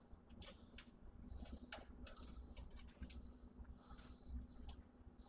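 Faint, irregular clicks and rustles of cables and plastic connectors being handled and pushed into the connection ports on the underside of a wall-mounted hybrid solar inverter.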